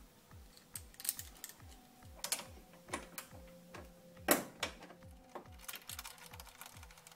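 Scattered light clicks and taps of an 8mm socket on a hand driver being seated and turned on a headlight mounting bolt, the sharpest about four seconds in, over a faint steady hum.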